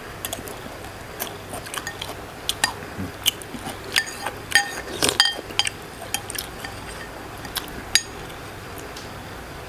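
Metal spoons clinking and scraping against a ceramic bowl while scooping chicken soup, a scatter of sharp clinks that is busiest and loudest around the middle, with some liquid stirring.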